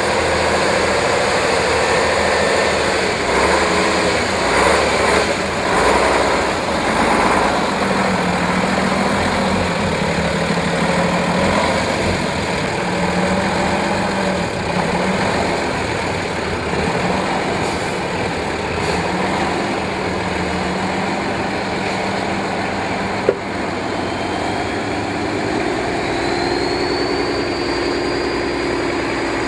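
Praga V3S trial truck's engine working under load as the truck crawls over sand mounds. Its pitch wavers up and down with the throttle and climbs over the last few seconds. One sharp click about two-thirds of the way through.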